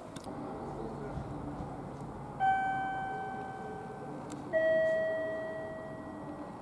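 Two-note railway platform chime: a higher note struck, then a lower one about two seconds later, each ringing and fading away.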